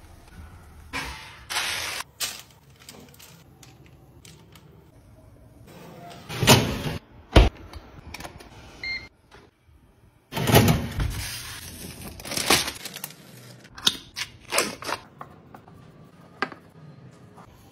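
Kitchen handling sounds of utensils on metal and a worktop: scraping, clicks and several sharp clatters and knocks, the loudest about six and a half seconds in, with another cluster from about ten seconds in.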